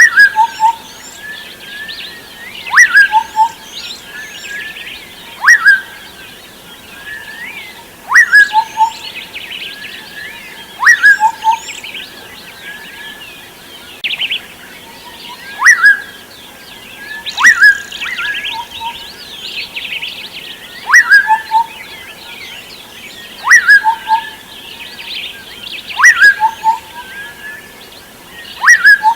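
Birds chirping: a loud call with a quick sweep in pitch and a couple of short lower notes repeats about every two and a half seconds, over a steady chorus of many small birds twittering.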